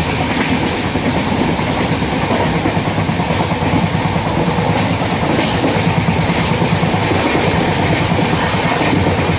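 Steady running noise of a moving train heard from on board: a continuous rumble from the wheels on the rails, with a few short clacks.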